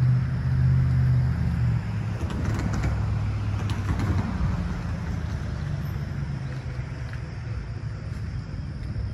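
Low engine hum of a motor vehicle in road traffic, loudest in the first two seconds and quieter after.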